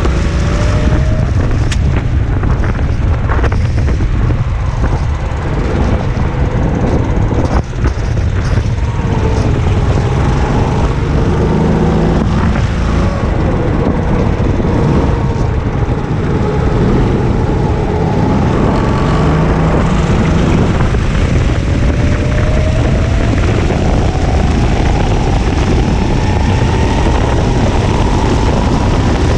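Go-kart engine running at race pace, its revs rising and falling again and again through the corners, over a steady rumble of wind on the onboard microphone.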